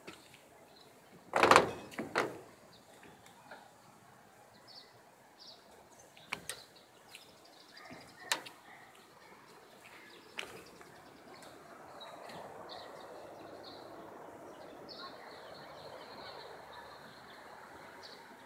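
Outdoor ambience on a building site: a loud brushing noise about a second and a half in, a few sharp knocks, and faint high chirps, with a steady noise building from about halfway through.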